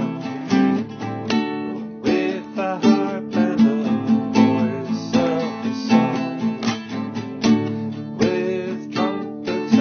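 Acoustic guitar strummed in a steady rhythm, the strums a little under a second apart.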